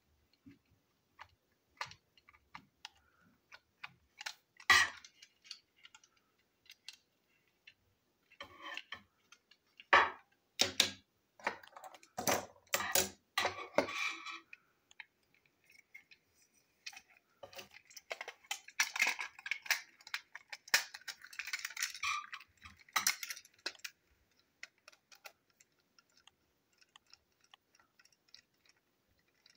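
Hard plastic parts of a battery-powered toy train engine clicking, tapping and rattling as it is handled and put back together with a screwdriver. The sound is a scatter of separate clicks and knocks, with busier stretches of rattling a third of the way in and again after the middle.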